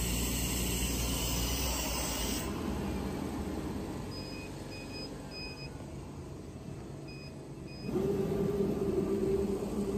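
Steady machine hiss and hum that cuts off about two seconds in, then two groups of short electronic beeps (three, then two). Near the end a CNC leather cutting machine's motor switches on with a loud, steady hum.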